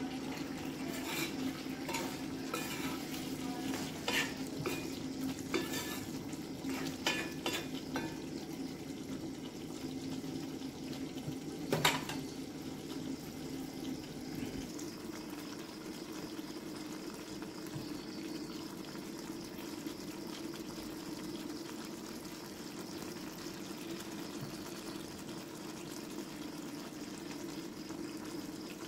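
Metal ladle stirring and scraping a thick curry in a cast-iron kadai, with frequent clinks and one louder knock on the pan about twelve seconds in. The stirring then stops, and the curry cooks on with a soft steady sizzle over a low steady hum.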